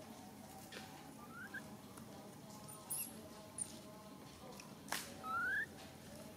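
Baby long-tailed macaque giving short rising squeaks: a faint one about a second and a half in, and a louder one about five seconds in, just after a sharp click. A brief high chirp comes near three seconds.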